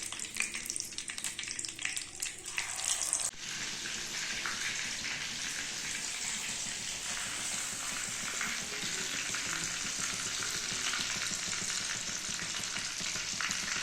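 Cornflour-coated chicken pieces deep-frying in hot sunflower oil: crackling and spitting for the first three seconds, then suddenly a steady, even sizzle.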